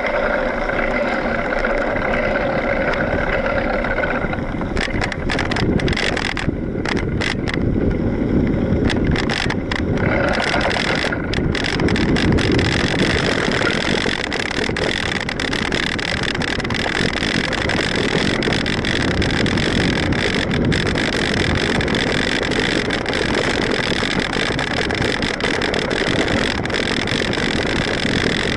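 Mountain bike rolling along a dirt trail, heard from a handlebar-mounted camera: a steady rumble of tyres on dirt and wind on the microphone, with many clicks and rattles from the bike over rough ground, thickest a few seconds in.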